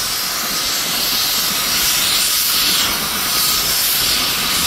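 Chemical vapour leaking under pressure from the roof fittings of a railway hopper car, a steady loud hiss.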